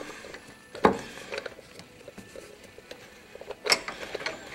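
Light clicks and two sharp knocks of metal on metal as a mechanical fuel pump is handled and worked onto its mounting studs on the engine block, the louder knocks about a second in and near the end.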